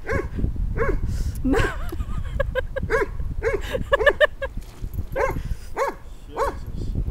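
A dog barking over and over at a stick in the water, short high barks about two a second, with a quicker run of smaller yips in the middle.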